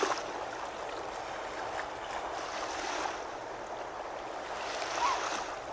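Seawater lapping and washing steadily around shore rocks, with a short high chirp at the start and another rising-and-falling chirp about five seconds in.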